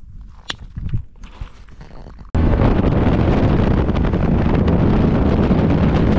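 A few faint clicks and knocks, then an abrupt cut about two seconds in to a loud, steady rush of wind buffeting the microphone.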